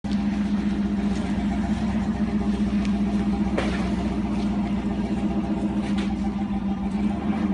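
A vehicle engine running at a steady speed, a constant low drone that holds one pitch, with a few light clicks over it.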